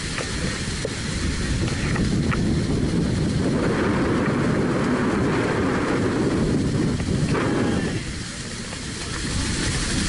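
Wind buffeting the microphone on the open deck of a moving tour boat below Niagara Falls, a steady low rumble that eases briefly about eight seconds in.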